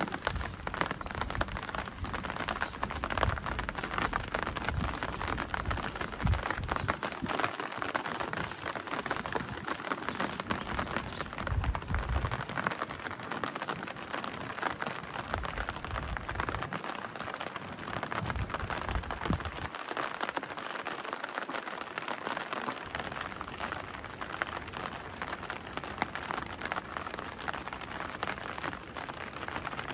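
Steady rain falling: a dense patter of drops, with low rumbles coming and going underneath.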